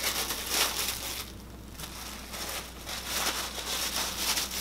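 Thin disposable plastic food-prep gloves crinkling and rustling as they are pulled on, in a series of short rustles with a brief lull about a second in.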